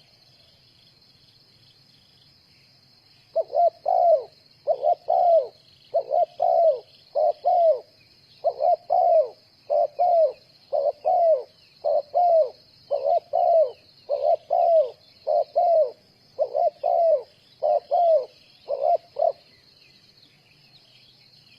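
Spotted dove cooing: a long run of paired, downward-curving coos, starting about three seconds in and stopping a couple of seconds before the end. A steady high insect trill runs underneath.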